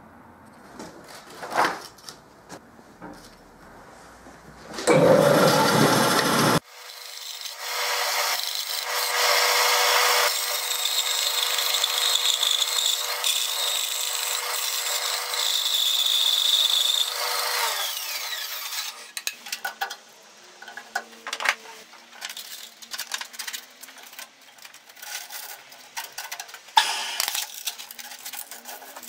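Quiet handling with a single click, then a short loud burst of noise that cuts off abruptly. A bandsaw then runs with a steady hum while cutting a thin wooden dowel, and stops after about eleven seconds. The rest is irregular rubbing and scratching as a wooden dowel is sanded by hand in folded sandpaper.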